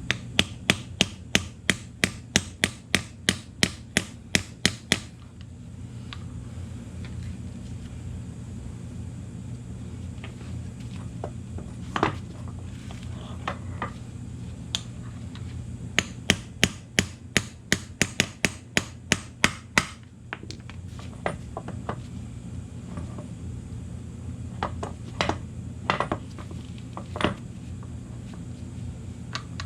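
Hammer striking the universal joint on a 1993 Ford F150 4x4 drive shaft: two fast runs of sharp metal blows at about three to four a second, with slower single blows between and after them.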